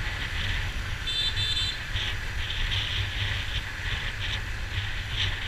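Dense street traffic heard from a moving motorbike, with a steady low rumble throughout. About a second in, a vehicle horn gives a short high-pitched double beep.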